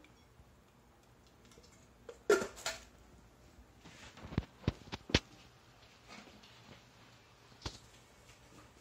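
A few sharp knocks and clicks as parts of a stopped can seaming machine are handled and adjusted by hand: a cluster about two seconds in, three quick knocks around four to five seconds, and one more near the end.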